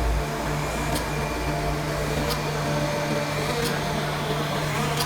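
Portable line boring machine running its facing tool: a steady machine hum, with a short high tick repeating evenly about every 1.4 seconds.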